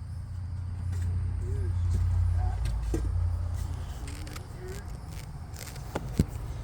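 Low rumble of a passing vehicle, swelling to a peak about two seconds in and then fading, with a sharp click near the end.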